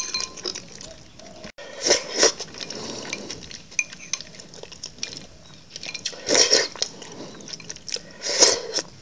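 Loud slurping of ambuyat, the sticky sago starch, dipped in fish soup, with sips of the soup straight from a glass bowl and light clinks of chopsticks against the glass. There are four slurps: a quick pair about two seconds in, then single ones later on.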